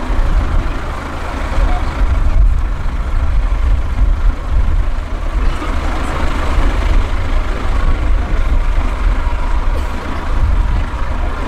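Diesel engine of a 4x4 trial truck running steadily at low revs, a deep rumble, with crowd chatter in the background.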